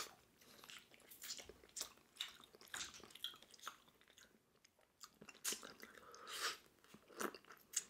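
Chewing steamed clam meat: soft, scattered mouth clicks and smacks, with a brief lull about halfway through.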